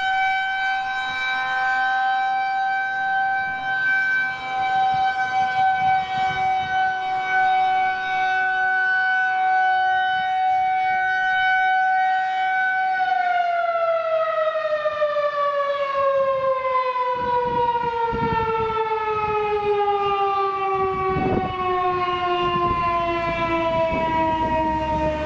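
Federal Signal 2001-130 electromechanical rotating siren sounding a steady single tone at full speed. About halfway through, the power is cut and its pitch falls slowly and smoothly as the rotor winds down, ending the test signal.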